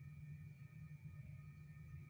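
Near silence: room tone, a steady low hum with faint steady high tones.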